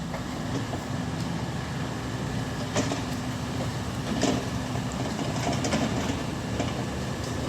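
A steady low engine hum, with a few light clicks and knocks about three and four seconds in.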